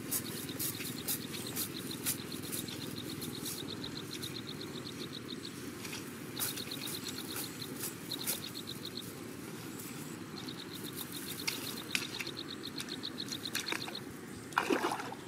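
An insect chirps in rapid, evenly spaced high-pitched pulse trains lasting a second to several seconds, with short breaks between them, over a steady low outdoor background. A brief louder splash comes near the end.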